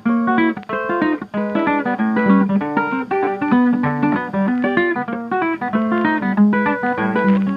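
Background music: a quick, plucked guitar tune with many short notes.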